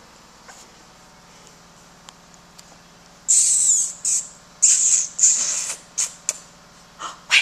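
Puppies at play: a few faint clicks, then from about three seconds in a run of short, high-pitched squeaks and squeals, about seven in all.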